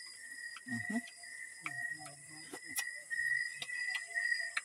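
Crickets chirping in a steady, pulsing trill at one high pitch, over a higher hiss of other night insects, with a few faint clicks and brief low sounds.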